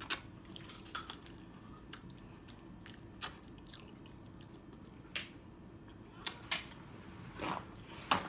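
A person eating crab meat: quiet chewing with scattered wet mouth clicks and smacks, and fingers being licked clean.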